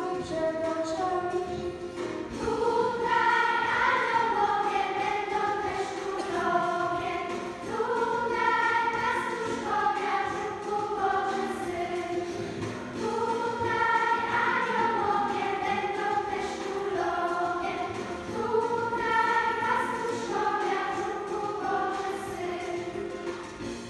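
Children's choir singing a carol, in sung phrases a few seconds long with held notes.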